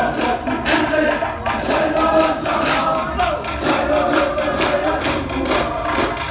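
Samoan group performance: many voices singing and chanting together, with a sharp percussive strike about once a second keeping the beat.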